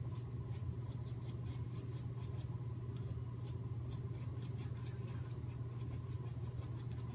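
Shaving brush scrubbed over a lathered face: a run of quick scratchy brush strokes over a steady low hum.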